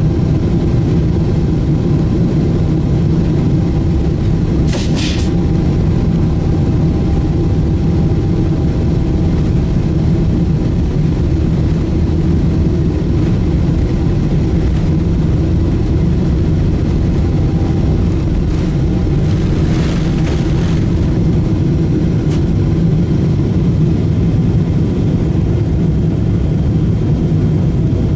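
Boeing 777-300ER's GE90-115B jet engines at takeoff thrust, heard inside the cabin over the wing: a loud, steady low roar with faint steady whining tones above it, through the takeoff roll and liftoff.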